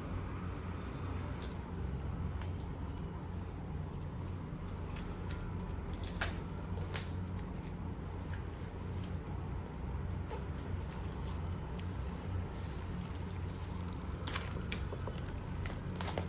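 Hands handling Blu-ray packaging: scattered sharp clicks and taps with light rustling, over a steady low hum.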